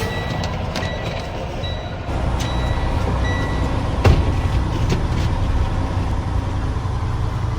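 Truck engine running with a steady low rumble that grows a little louder about two seconds in, while short high beeps sound on and off during the first few seconds. A single sharp knock about four seconds in.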